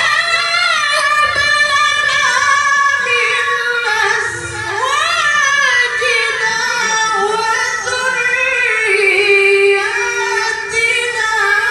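A young male qari reciting the Qur'an in a high, ornamented melodic style, one long unbroken phrase with a quick rise and fall about five seconds in and a long held note near the end.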